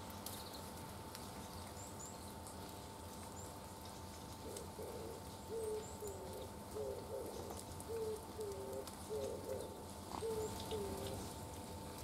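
Oriental turtle dove singing its low cooing song: a string of short, slightly falling hoots, mostly in pairs, starting about four seconds in and repeating for several seconds.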